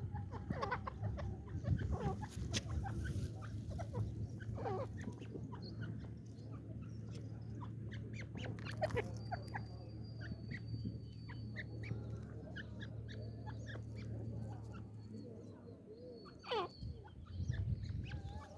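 Female francolin (teetar) calling: a scattered run of short chirps and clucking notes, over a steady low hum.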